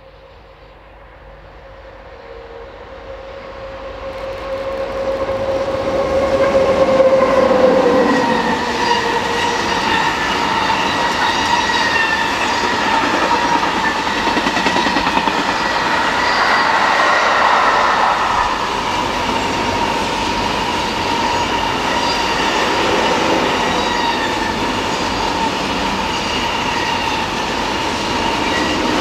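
A train approaching and passing close by, growing louder over the first several seconds. A tone drops in pitch as the head of the train goes past, about seven seconds in. The rest of the train then keeps running past loudly and steadily, with a steady high whine.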